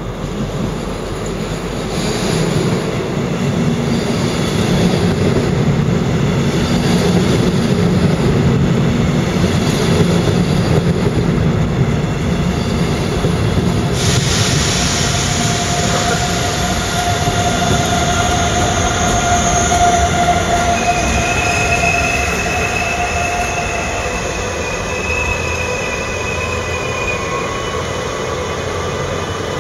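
Double-deck passenger train hauled by an electric locomotive rolling slowly past with a low rumble. About halfway through the sound changes abruptly to a train moving through the station with its wheels squealing on the curved track, long steady squeal tones that fade near the end.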